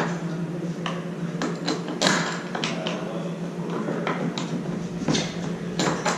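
Scattered clicks and knocks of hard plastic parts as a Power-Pole Micro Anchor motor unit is handled and fitted onto its mounting bracket on a kayak, over a steady low hum.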